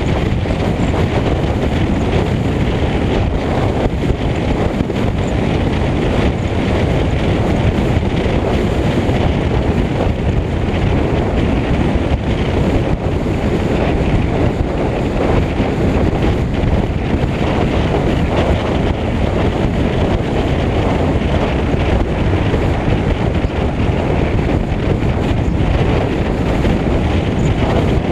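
Steady wind rush and road noise from a Lincoln Mark VIII cruising along a road, picked up by a camera mounted on the outside of the hood, with the wind hitting the microphone directly.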